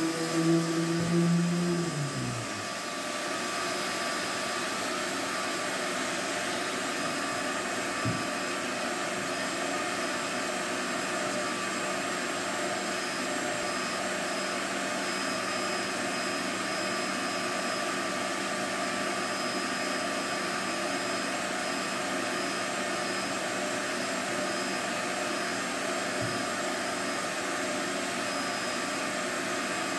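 Shop vacuum running steadily as dust extraction for an electric sander. About two seconds in, the sander's motor hum winds down and stops, leaving the vacuum running alone.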